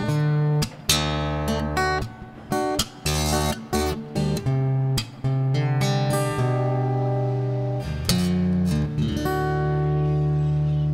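Background music on acoustic guitar: a run of quick plucked notes and strummed chords, ending about nine seconds in on one chord left ringing.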